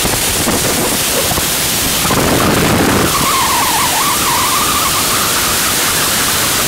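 Freefall wind rushing over a skydiver's helmet-mounted camera microphone, a loud steady roar. A wavering whistle joins it for a few seconds from about three seconds in.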